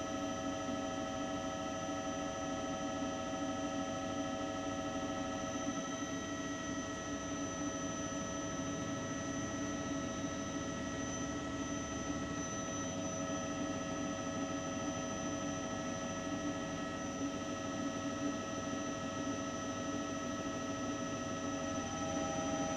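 Background music: a slow ambient drone of held tones, with the chord shifting slightly a couple of times.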